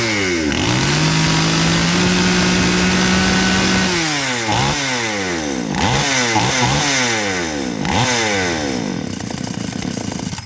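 New West two-stroke chainsaw engine being revved: the throttle is opened and held at high revs for about three seconds, then blipped up and down several times before dropping back toward idle near the end.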